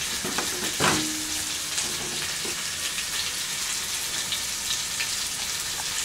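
Chicken drumsticks frying in oil in a pan, a steady sizzle, with a single sharp click about a second in.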